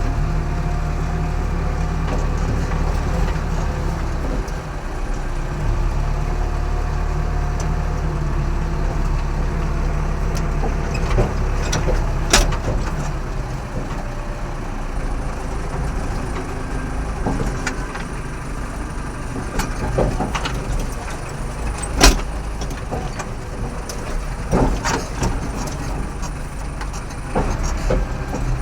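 A JCB construction machine's diesel engine running steadily, with a scatter of short sharp knocks or clanks, the loudest about three-quarters of the way through.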